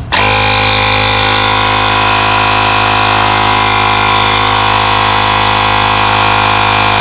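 TEKGINE handheld cordless tire inflator's electric compressor switching on and running steadily, pumping air into a car tire through its hose. It kicks on a moment in, then holds a constant, even drone.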